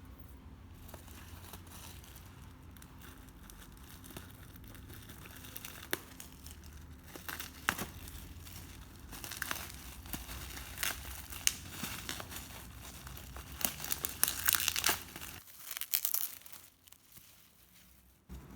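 Packaging being handled and opened: crinkling, crumpling and tearing of wrapping in irregular bursts. The bursts start about a third of the way in, are busiest near the middle, and stop a few seconds before the end.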